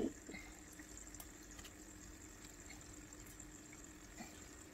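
Faint trickling and dripping of aquarium water over a steady low hum, with a soft knock at the very start.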